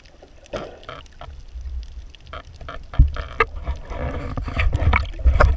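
Underwater sound from a camera in a waterproof housing: muffled water sloshing and low thumps against the housing, with scattered sharp clicks. It grows louder and heavier about three seconds in as the camera rises toward the surface.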